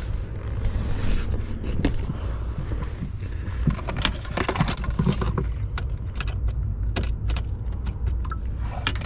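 Scattered metallic clinks and clicks from hand work at the car's battery, over a steady low rumble.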